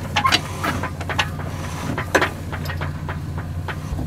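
Boat engine running at a steady low hum, with a few short knocks from the deck gear.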